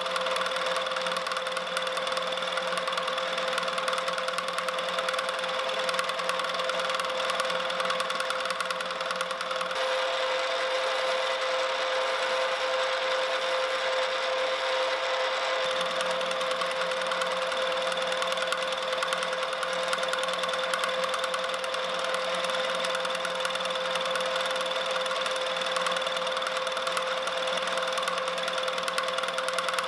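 Milling machine running steadily with a constant whine, its end mill cutting a spiral groove into a motorbike throttle shaft.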